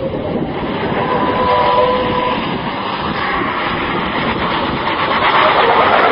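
Diesel engine of a MAN semi-truck tractor unit running hard as the truck drifts through turns, with tyres scrubbing on the road surface; it gets louder near the end.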